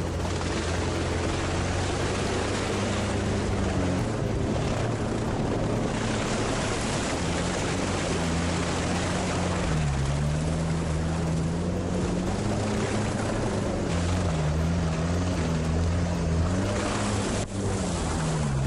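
All-terrain vehicle engine running hard at speed over bog terrain, its note wavering up and down with the throttle, over a steady rushing noise.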